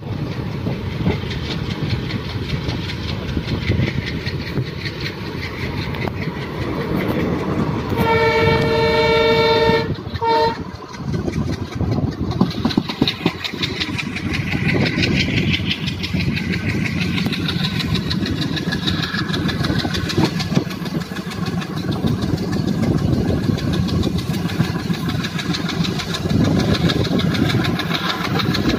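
Passenger train running, heard from on board: a steady rumble of wheels on rails with rapid rail clatter. About eight seconds in, the locomotive horn sounds one long blast of about two seconds, followed by a short toot.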